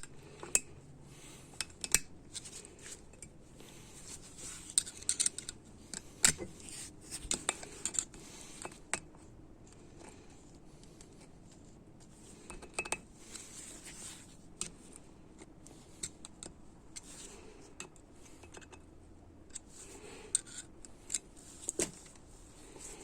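Scattered sharp metallic clicks and scrapes of a steel snap ring and snap-ring pliers being worked into a groove on an A604 (41TE) automatic transmission part, the ring resisting going into place.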